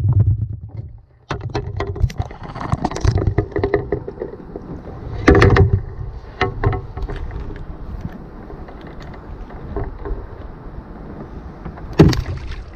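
Handling noise in a canoe: rustling and clicking as a fishing rod and line are worked by hand, with two louder thumps, about five seconds in and near the end.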